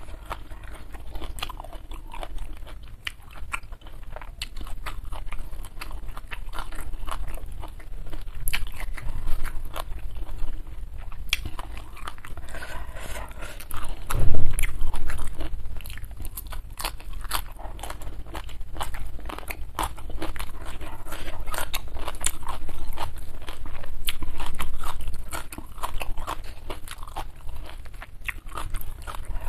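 Close-miked chewing and crunching of food, with many small wet clicks and crackles from the mouth. A single loud low thump comes about halfway through.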